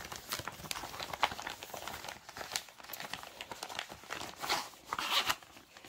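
Clear plastic packaging of a cross-stitch kit crinkling as it is handled, with irregular crackles and a few louder rustles about halfway through and near the end.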